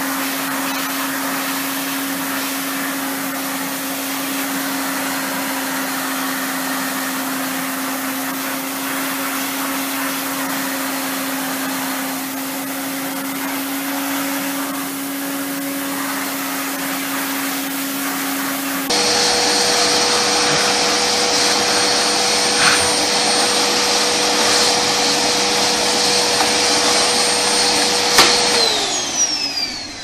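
Vacuum cleaner running steadily with its hose nozzle pressed on a cat's fur. About 19 s in, a louder vacuum with a higher whine takes over. Near the end it is switched off and its motor winds down with a falling whine.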